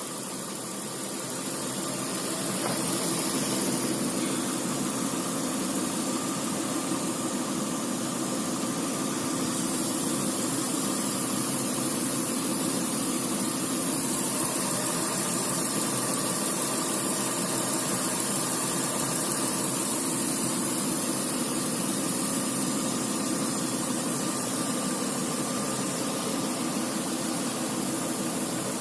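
Car engine idling with its electric radiator cooling fan switching on and running. The level swells over the first few seconds, then holds as a steady rushing hum.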